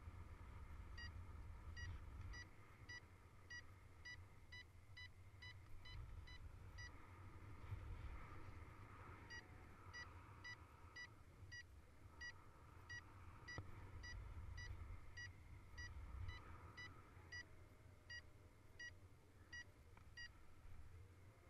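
Paragliding variometer beeping, about two short beeps a second at a steady pitch, a tone that signals the glider is climbing; it breaks off for about two seconds a third of the way in, then resumes. Low wind rumble on the microphone underneath.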